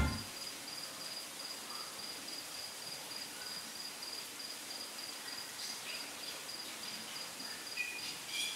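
An insect chirping outdoors: a steady high-pitched note that pulses evenly. A few faint short chirps come near the end.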